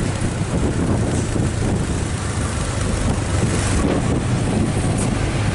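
A truck engine running with a steady low drone, mixed with wind noise on the microphone.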